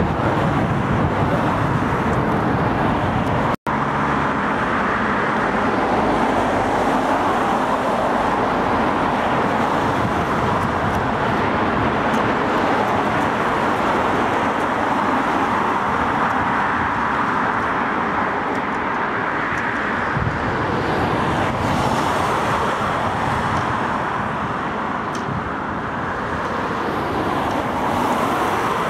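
Steady road traffic noise from cars passing on the adjacent road, a continuous hiss of tyres and engines. It drops out completely for a split second about three and a half seconds in.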